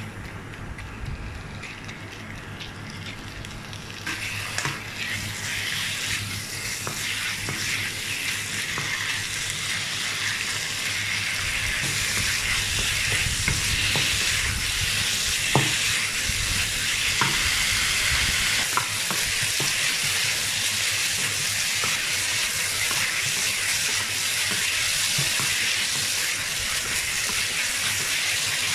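Diced chicken sizzling in a non-stick wok as it is stir-fried with a wooden spatula. The sizzle is faint at first, picks up about four seconds in and grows louder, with occasional clicks of the spatula against the pan.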